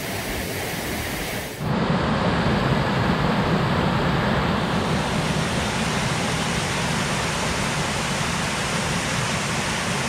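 Small mountain waterfall rushing steadily. About two seconds in, it changes to a closer, louder cascade of white water over rocks, with a fuller, deeper rush.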